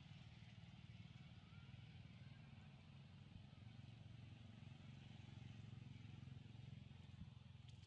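Near silence: a faint, steady low hum with quiet outdoor background.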